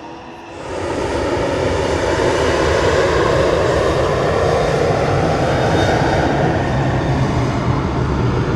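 Jet airliner engines running close by, a loud, steady rushing noise that comes in suddenly about half a second in and holds.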